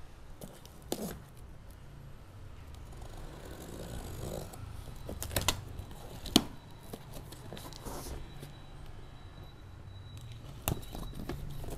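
A cardboard box being opened with a kitchen knife: the knife scrapes along the packing tape and the flaps rustle as they are pulled apart, with a few sharp knocks and clicks, the loudest about six seconds in.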